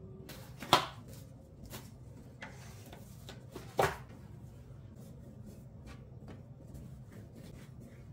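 Kitchen handling sounds on a wooden board as bread dough is cut with a plastic scraper and the pieces are set down, including two sharp knocks, one about a second in and one near four seconds. After that comes light rustling and crinkling as plastic cling wrap is laid over the dough balls.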